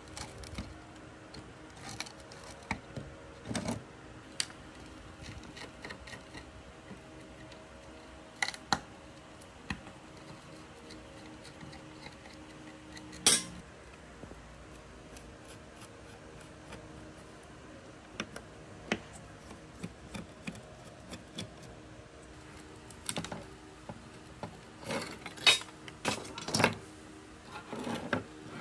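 Scattered small metallic clicks, taps and clinks as a rusty GTX 1060 graphics card is taken apart by hand with a small screwdriver, its heatsink and bracket knocking against the board. One sharper clink about halfway through and a cluster of them near the end stand out over a faint steady hum.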